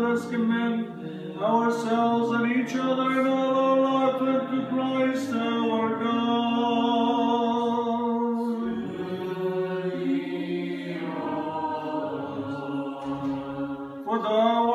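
A cappella Orthodox liturgical chant: voices singing an antiphon of the Divine Liturgy in long held notes, with a new phrase beginning about two-thirds of the way through.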